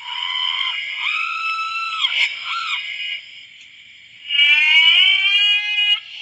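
Cartoon scream sound effects. There are two screams: one runs for about three seconds, and a second, louder one starts about four seconds in, rising in pitch before it cuts off.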